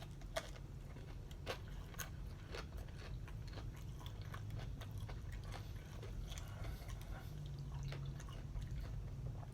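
A person chewing spicy chicken wings close to the microphone: scattered faint wet clicks and smacks of eating over a low steady hum.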